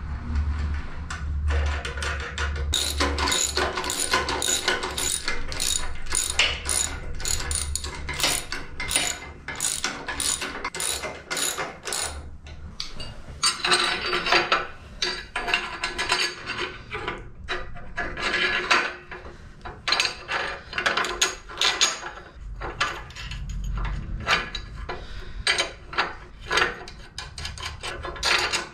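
Ratchet spanner clicking in quick runs, with short pauses, as the nuts on the coil-spring suspension studs of a 7.25-inch gauge locomotive chassis are tightened.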